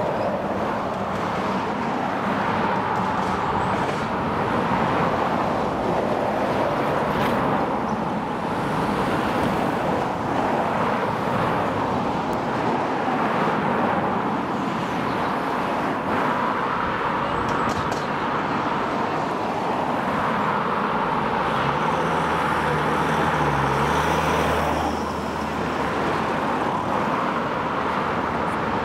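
Road traffic going by close at hand: a lorry and several cars passing one after another over a continuous traffic noise.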